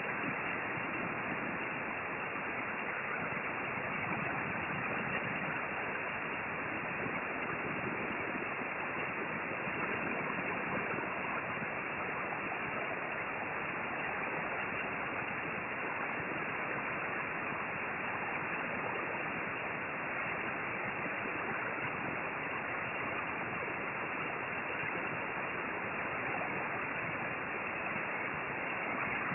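Hot-air rework station blowing a steady hiss of hot air from its nozzle onto a USB3320 chip to reflow its solder, set to a little too much airflow.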